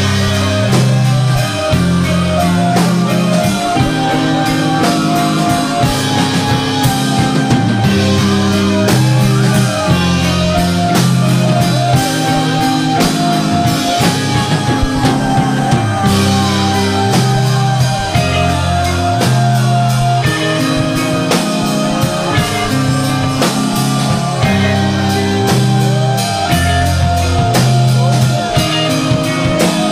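Loud recorded screamo/hardcore punk band music: distorted guitars and bass playing a repeating riff over a driving drum kit.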